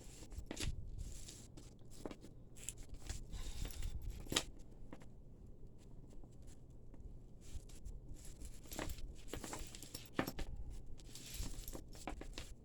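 Tangled costume jewelry being worked apart by hand: scattered light clicks and rattles of metal chains and beads, with rustling in between.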